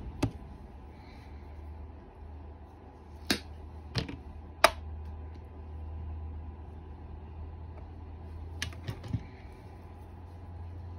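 Small metal weight pieces clicking sharply as they are set down on a plastic digital scale and the bench: one click about a quarter second in, three more between three and five seconds, the last the loudest, then a few lighter taps near nine seconds. A low steady hum runs underneath.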